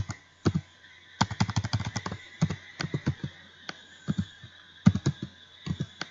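Typing on a computer keyboard: irregular clicks of keystrokes, with a quick flurry a little over a second in, over a faint steady hum.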